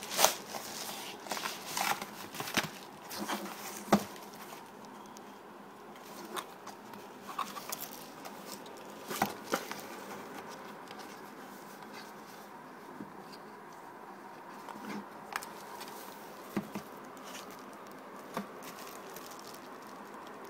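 Hands handling product packaging, a mailer bag and a cardboard-and-plastic retail box: sharp crinkles, clicks and taps, densest in the first few seconds and again about nine seconds in, then only occasional light taps over a faint steady background noise.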